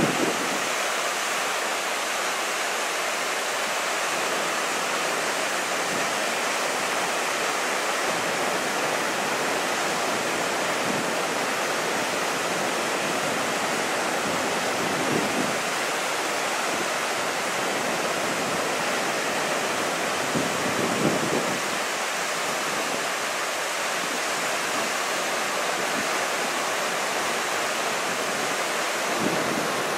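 Waterfall pouring into a churning plunge pool: a steady, full rushing of water. Two brief low rumbles come through, about halfway and about two-thirds of the way through.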